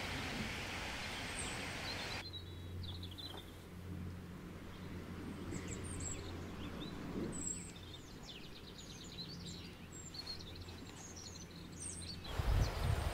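Small songbirds chirping and trilling in woodland, over a steady low hum. Near the end, low rumbling bumps sound on the microphone.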